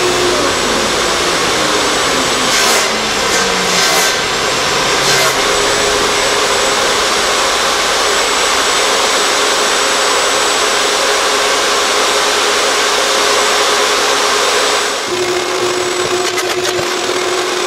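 Wood-Mizer LT50 band sawmill running and sawing through a log: a loud, steady rush of the blade cutting over the mill's motor. About 15 seconds in it gives way to a different, steadier machine hum with a clear low tone.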